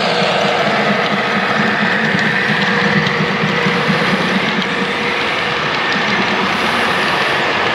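Model freight train running past: the DCC sound decoder of its Class 66 diesel locomotive playing a steady engine note, mixed with the rolling noise of container wagons on the track.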